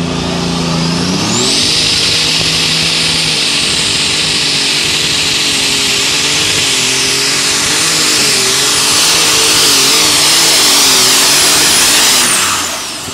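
Super stock pulling tractor's turbocharged engine revs up about a second in and runs flat out under the sled's load, its note wavering, with a high turbocharger whine held over it. Near the end the engine lets off and the whine falls away.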